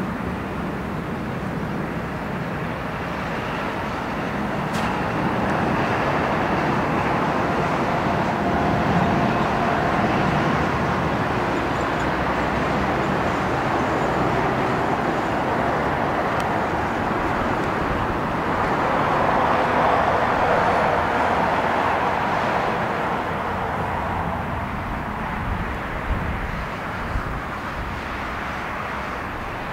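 Boeing 737-800's CFM56-7B jet engines during the landing roll, a steady jet roar that swells twice.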